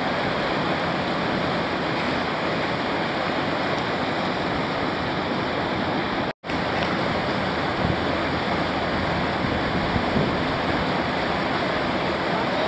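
Whitewater river rapids rushing steadily, a constant wash of churning water; the sound cuts out for an instant about halfway through.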